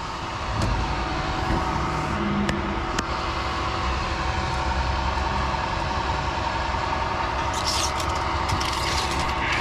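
Heavy diesel engine idling steadily, with a brief scratchy rustle about eight seconds in.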